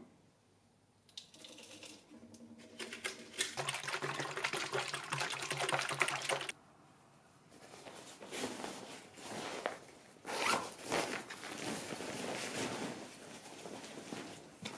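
Liquid poured into a plastic drink bottle, a steady splashing fill lasting about five seconds that stops abruptly. After that, fabric rustling as clothes and a sports bag are handled and packed.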